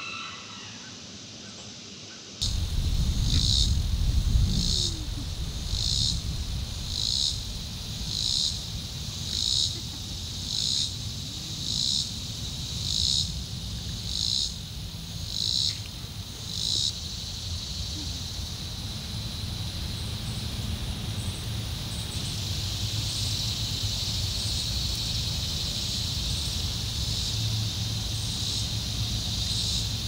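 Summer insect chorus: a high, shrill call pulsing in a regular beat about once a second for the first half, then settling into a steady drone. A low rumble runs underneath.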